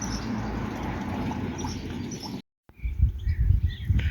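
Water pouring steadily from a fountain pipe into a plastic container. It cuts off abruptly about two and a half seconds in, and a low uneven rumble follows with a few short bird chirps.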